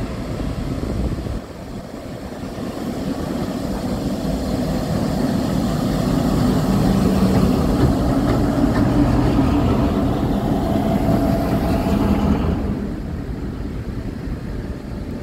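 CN diesel locomotives running light, engines droning as they pass beneath. The drone builds over several seconds, is loudest as the units go underneath, and drops off sharply near the end.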